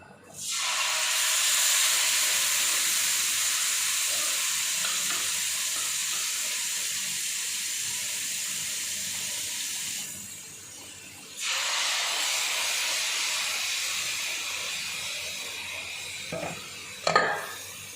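Chicken pieces sizzling in hot oil in a cooking pot: a loud steady hiss that breaks off about ten seconds in and starts again a second and a half later, then fades. A sharp knock near the end.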